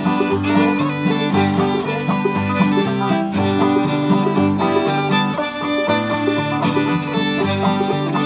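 Old-time string band of fiddle, banjo and acoustic guitar playing an instrumental break with a steady rhythm and no singing.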